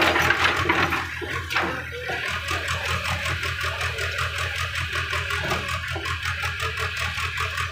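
JCB JS81 tracked excavator's diesel engine running with a steady low hum while the bucket digs into wet mud. A splashing, scraping burst in the first second or so comes from the bucket biting into the sodden ground.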